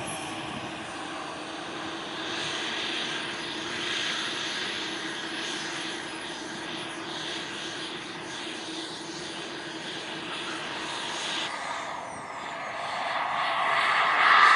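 Skymaster T-38 Talon RC model jet flying, its engine whine heard steadily at a distance. Past the middle the whine falls in pitch as it passes, then it grows louder over the last couple of seconds as the jet comes closer again.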